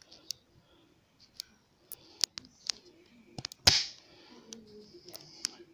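Handling noise: scattered light clicks and knocks, with one louder knock a little past halfway, as the camera is moved about.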